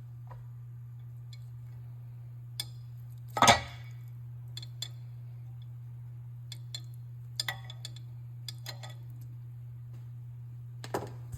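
Scattered light clinks and knocks, as of dishes or cutlery being handled, the loudest about three and a half seconds in, over a steady low hum.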